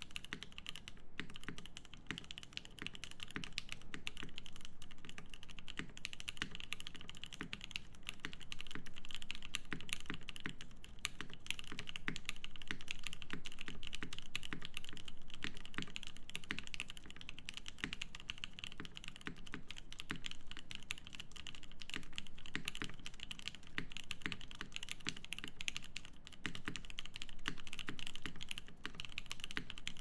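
Continuous fast typing on a Hiney TKL One custom mechanical keyboard with lubed Nolives switches in an FR4 plate, tape-modded, with GMK keycaps: a dense, steady stream of keystrokes.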